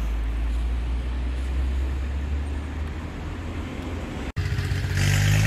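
Steady low rumble of vehicle noise, then about four seconds in, after a short dropout, a motor vehicle engine idling with an even hum.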